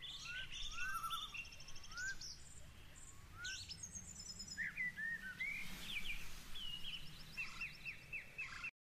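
Several songbirds chirping and singing, with repeated short rising whistles and quick trills overlapping, over faint outdoor background noise. It cuts off suddenly near the end.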